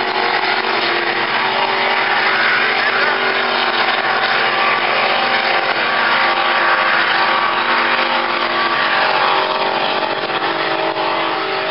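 Racing boats' engines running flat out, a loud steady drone with no change in pitch.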